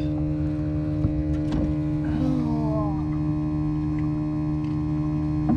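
Steady low hum of a boat motor idling, with a brief falling tone a little after two seconds in.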